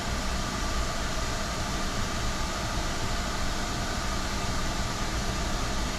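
A steady motor whir with a hiss, unchanging throughout.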